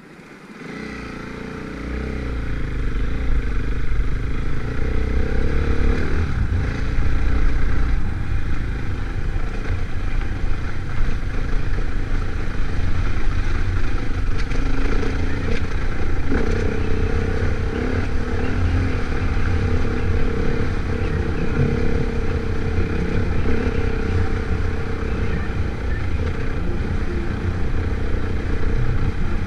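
Trail motorcycle engine running steadily as the bike rides along a rough, rutted track. The sound fades in over the first couple of seconds.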